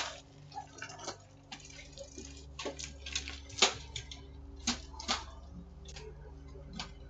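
About a dozen irregular light clicks and taps, the sharpest about three and a half seconds in, over a steady low electrical hum, heard through a doorbell camera's microphone.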